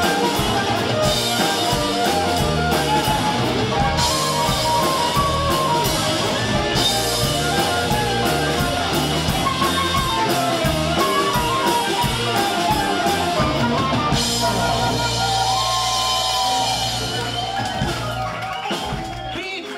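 Instrumental rock-and-roll music with drum kit and guitar, fading out near the end.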